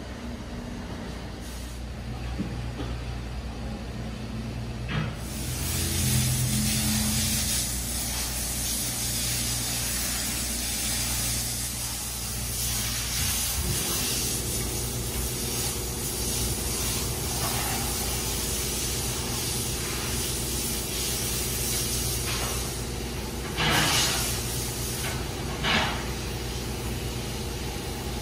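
Car wash water spray hissing, starting suddenly about five seconds in, over the steady hum of the car wash's pumps and machinery. Two short, louder blasts of spray come near the end.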